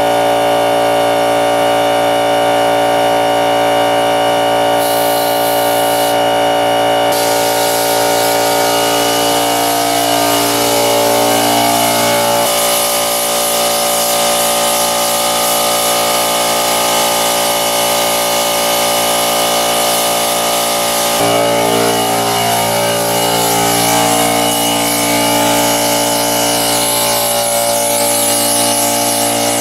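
A handheld power tool running steadily as it shapes the padding on a car roof, its pitch shifting about twelve seconds in and again about twenty-one seconds in.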